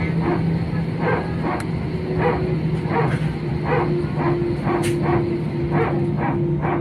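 A dog barking over and over, about two barks a second, over a steady low hum.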